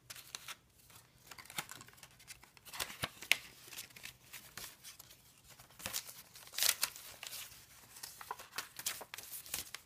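Paper rustling and crinkling as the pages, tags and cards of a handmade junk journal are turned and handled, in uneven spurts with the loudest rustles about three seconds in and again around six and a half to seven seconds.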